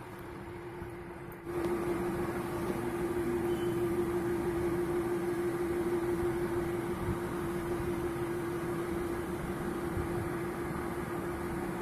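Steady mechanical hum with a constant pitched tone over a hiss, starting suddenly about a second and a half in.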